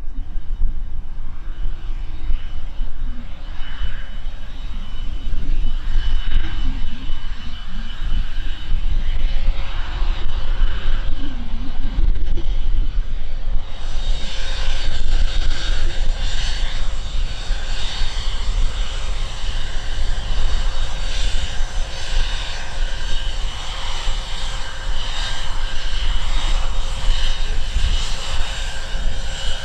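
IAI Gulfstream G150 business jet taxiing, its twin Honeywell TFE731 turbofans running steadily at taxi power with a high whine over a low rumble. A hiss in the upper range joins suddenly about halfway through.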